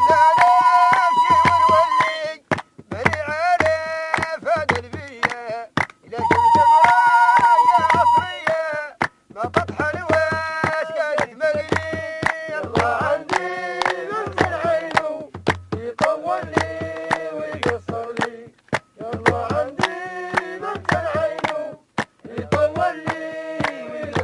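Singing in short phrases with long held notes, over a low drum beat and sharp percussive clicks, with brief pauses between phrases.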